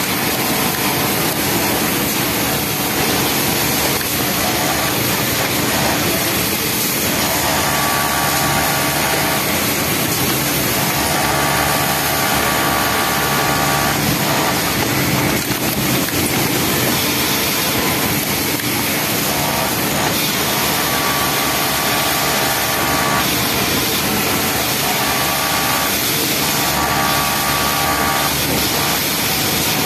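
Industrial Yamato flatlock sewing machine stitching a T-shirt bottom hem in runs of a few seconds. Its whine comes and goes with each run, over a steady loud hiss.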